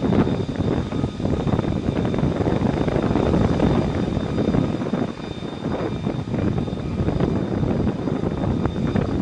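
Jet aircraft engine noise: a steady, uneven rush with a faint steady high tone above it.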